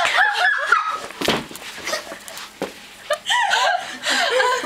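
A girl hiccuping: two sharp hics about a second and a half apart, between stretches of high, wavering vocal sounds.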